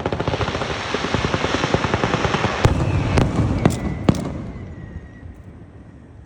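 Fireworks going off: a dense, rapid crackling with several louder sharp bangs about two and a half to four seconds in and a thin whistle, then the crackle dies away about five seconds in.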